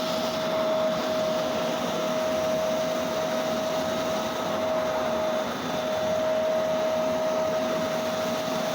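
CNC die-making milling machine's high-speed spindle cutting an 18 mm plywood die board: a steady whine over a rushing noise, with a brief dip about five and a half seconds in.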